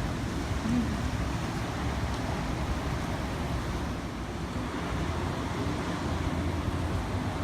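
Thunderstorm ambience: a steady, low rumbling noise of wind and weather, with no sharp thunderclap.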